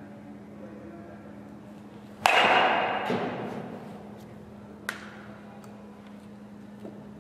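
Baseball bat striking a ball off a batting tee: one sharp hit about two seconds in that rings and fades over a second and a half. A lighter click follows a couple of seconds later.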